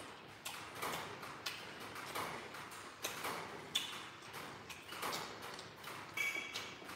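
Eating sounds: chewing and smacking on noodle soup in a run of short wet clicks about twice a second. A metal spoon rings briefly against the ceramic bowl twice, around four and six seconds in.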